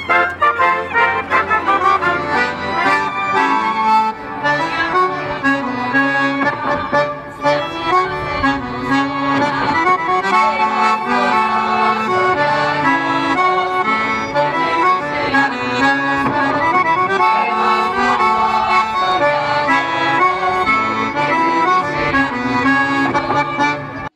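Lively folk dance music led by accordion, playing steadily with a brisk rhythm.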